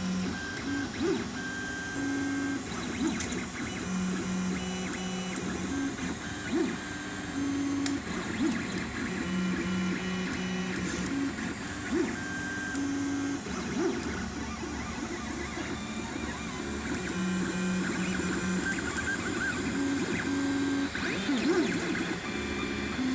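3D printer's stepper motors whining as the print head moves, in steady tones that jump between a few pitches every second or so, broken by short rising and falling pitch sweeps.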